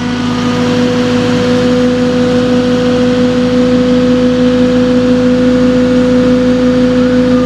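Construction machine's diesel engine running close by at a steady speed: a loud, even drone that does not change in pitch.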